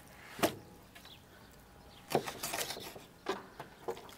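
Raw whole chicken being handled on a wooden cutting board: a few wet slaps and knocks. The strongest comes about half a second in, followed by a cluster of them midway and a couple more near the end.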